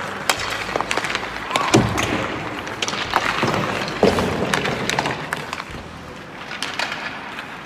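Ice hockey practice on the rink: skate blades scraping the ice and many sharp clacks of sticks and pucks, irregular and scattered, growing quieter near the end.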